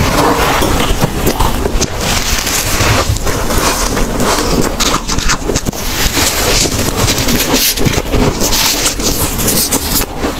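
Powdery freezer frost ice crunching close to the microphone, a dense, unbroken run of crackles.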